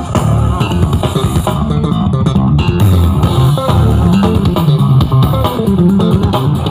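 Loud music with a heavy bass line and a melody, played through large outdoor sound-system speaker stacks.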